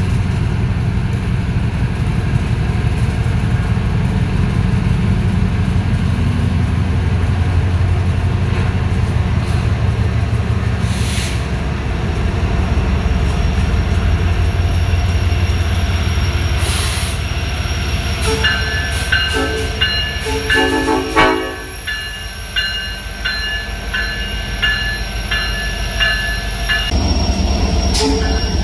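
Ferromex diesel-electric locomotives, among them an SD70ACe, passing close by at low speed, their engines giving a heavy, steady rumble. From about two-thirds of the way through, a locomotive bell rings rapidly over the quieter rumble. Near the end the rumble swells again as the next units come by.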